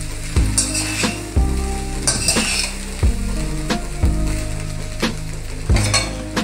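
Metal slotted spatula stirring and tossing rice with vegetables in a steel kadai over a low gas flame, with repeated scrapes and knocks against the pan about twice a second over a steady frying sizzle.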